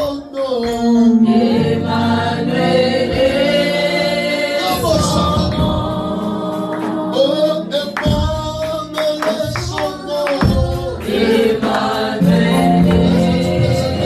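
Gospel worship song sung by a choir and congregation, voices drawing out long held notes over music with percussion hits.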